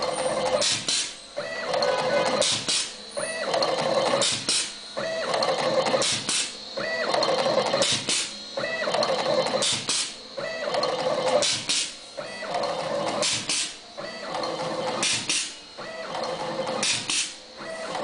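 Automatic flat ribbon cable cutting and stripping machine cycling. In each cycle its motor runs for a second or so, then two sharp clacks come as the blades cut and strip the cable. The cycle repeats about every two seconds.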